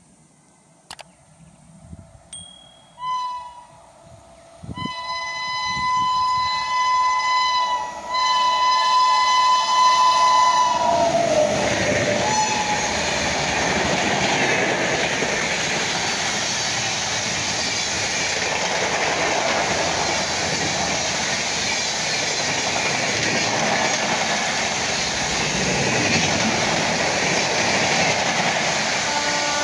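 A WAP-7 electric locomotive's air horn: one short toot, then two long blasts as it approaches at high speed, the pitch dropping as the locomotive passes. Then the steady rushing noise of the LHB coaches of the express running through at speed.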